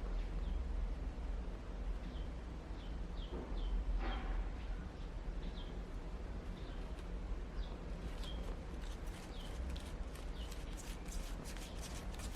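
Small birds chirping repeatedly in short, falling chirps over a steady low rumble. From about eight seconds in, a fast run of sharp clicks joins them.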